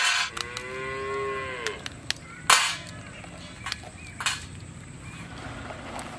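A cow moos once in one long call starting about half a second in. Around it come sharp clicks and cracks as the legs are snapped off live mud crabs during cleaning, the loudest about two and a half seconds in.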